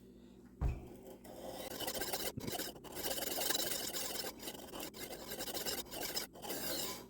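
Knife blade being stroked freehand across a coarse 300-grit diamond sharpening stone, a gritty scraping in a series of strokes with brief pauses between them, reprofiling the edge bevel. A thump about half a second in.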